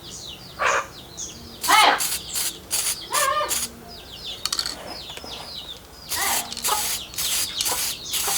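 Aerosol can of clear lacquer sprayed in quick successive bursts of hiss as a clear coat goes over a freshly painted cylinder block. Birds chirp throughout, with a few louder calls in between.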